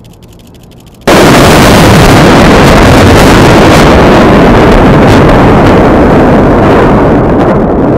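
Explosive demolition charges going off to bring down a bridge: a sudden blast about a second in, then a loud, overloaded roar lasting about seven seconds, with a few sharp cracks in its first few seconds.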